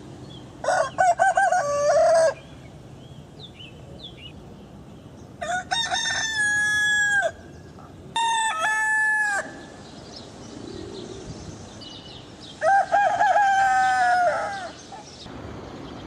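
Rooster crowing four times, each crow lasting one to two seconds and dropping in pitch at the end, with faint steady background noise between crows.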